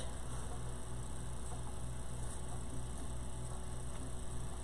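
Low electrical mains hum over a steady hiss, the hum pulsing about four times a second; no other sound.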